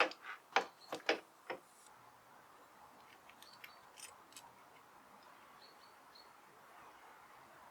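A quick run of sharp clicks and knocks from clutch parts or tools being handled on the bench in the first second and a half, then a low steady hiss with a few faint short chirps like birds outside.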